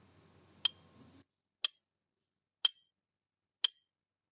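Countdown timer's clock-tick sound effect: four sharp ticks, one a second. A faint background hiss cuts out about a second in, leaving silence between the ticks.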